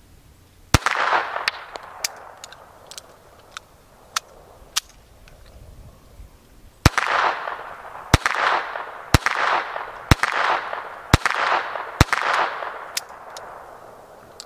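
Beretta 21A Bobcat .22 LR semi-auto pistol firing: one shot, a pause of about six seconds with a few light clicks, then six shots about a second apart, each with a short echo. The pistol is malfunctioning on this string.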